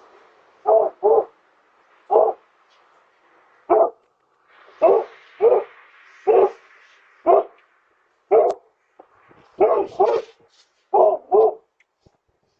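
A dog barking, about a dozen short barks at irregular intervals, some in quick pairs, picked up by a Ring video doorbell's microphone.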